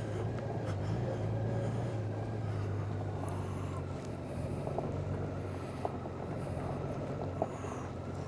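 Honda Gold Wing's flat-six engine running at low, steady revs while the motorcycle rolls along a rough gravel lane, with a few brief clicks in the second half.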